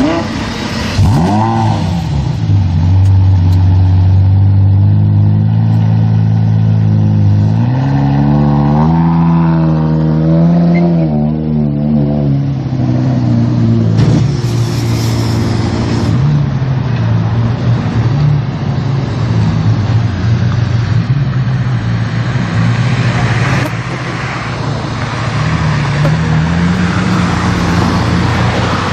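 Supercar engine running loud: a quick rev about a second in, then a deep steady note, with the pitch climbing and wavering up and down in the middle and rising again near the end.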